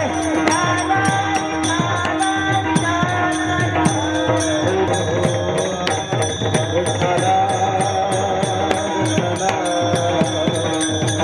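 Kirtan devotional music: small brass hand cymbals (taal) clash in a fast, even beat, about three strokes a second, with drum strokes under them. A melody slides in pitch over a held low tone.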